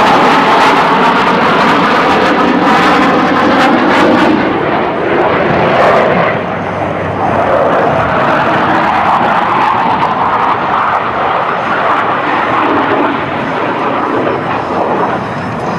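Jet noise from US Navy Blue Angels F/A-18 Hornets flying overhead, a loud, steady rushing roar. Its hiss thins after about four seconds as the jets pull away.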